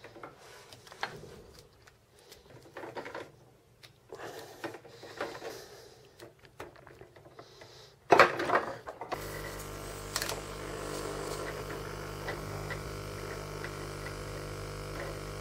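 Clicks and rustles of plastic air tubing and fittings being handled, then a short clatter about eight seconds in. About nine seconds in a tankless aquarium air pump switches on and runs with a steady electric hum.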